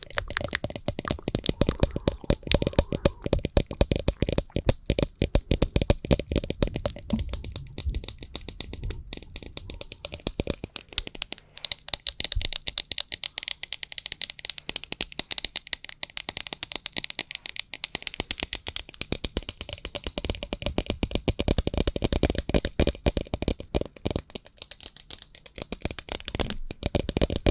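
Fast, continuous ASMR tapping on a small fan and a stand clip: a dense stream of light clicks and rattles, crisper and brighter for a stretch in the middle.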